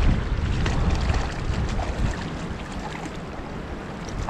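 Wind buffeting the microphone in gusts, easing after about two seconds, over the steady rush of river water.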